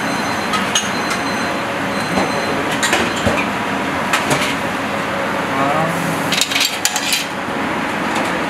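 Metal pots, pans and utensils clinking and knocking in a professional kitchen, in scattered sharp strikes that come thickest about two-thirds of the way through, over a steady rush of kitchen ventilation.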